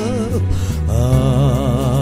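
Pop ballad with a backing track and steady bass, and a singer holding long notes with vibrato: one note ends shortly after the start and another begins under a second in.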